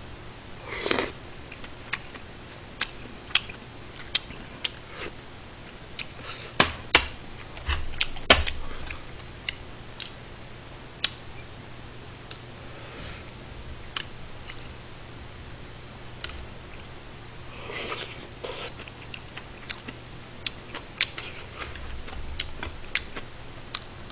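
Eating sounds: metal chopsticks and spoon clicking sharply and irregularly against the stew pot and bowls, with chewing and a couple of longer slurps of stew.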